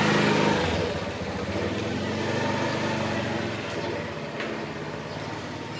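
A small engine running steadily, dropping in level about a second in and then going on more quietly.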